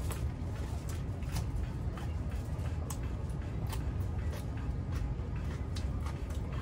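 Scattered light clicks and taps from tacos being handled in a foil tray and eaten, over a steady low rumble.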